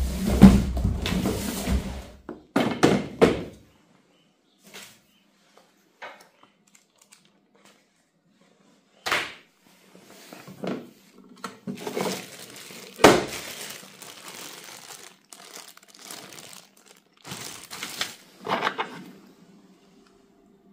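Cardboard box rustling and scraping as a lawn mower is lifted out of it, followed by scattered knocks, clicks and rustling of plastic parts being handled, with two sharp knocks in the middle.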